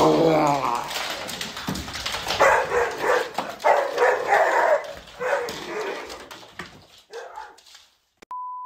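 Dog barking and yelping in four or five excited bursts, with sharp clicks and clatter between them. A short, steady electronic beep sounds near the end.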